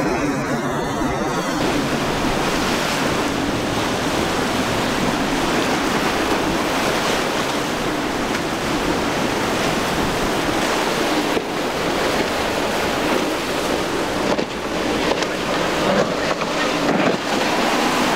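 Breaking surf and choppy sea with wind buffeting the microphone, over the low drone of a center-console boat's twin outboard engines running through the waves; the engine drone grows stronger near the end.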